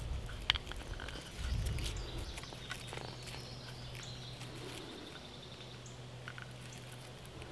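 Faint clicks and small scrapes of thin electric-fence wire being bent and wrapped by hand around a garden-hose insulator, over a low steady hum, with a brief low rumble about one and a half seconds in.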